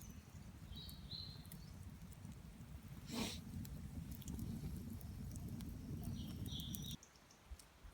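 Small birds chirping briefly, twice, over a low steady noise, with one sharp click about three seconds in. The low noise cuts off suddenly near the end.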